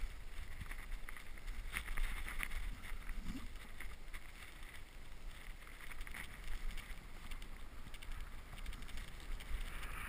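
Skis sliding and hissing through powder snow, with wind rumbling on a helmet-mounted GoPro's microphone and scattered crunches of snow. It is louder for the first few seconds, then quieter.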